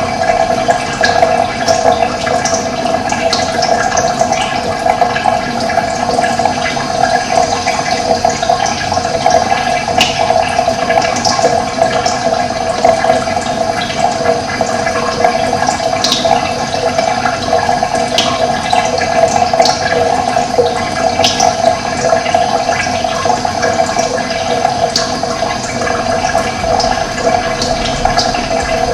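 Steady running water flowing without a break, with brief high chirps of birds now and then.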